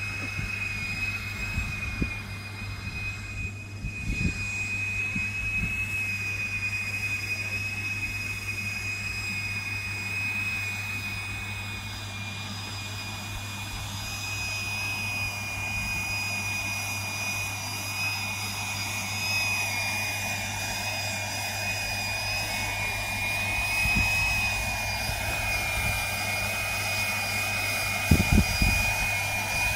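Electric coaxial model copter hovering, its motors and contra-rotating propellers giving a steady high whine over a low hum. In the later part a lower tone wavers up and down, and there are a few thumps near the end.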